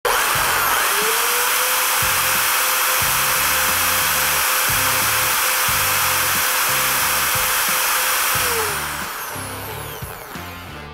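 Menegotti MDE 1200 W electric plaster float running: its motor whine climbs to a steady pitch about a second in, holds, then falls away as the tool spins down near the end, over a loud rushing noise. Music with a bass line plays underneath.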